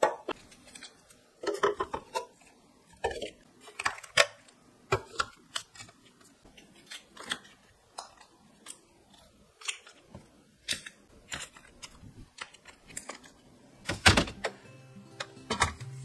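Hard plastic storage trays and baskets being handled, filled and set down, giving an irregular run of light clicks and knocks, with one louder knock about two seconds before the end. Soft background music comes in near the end.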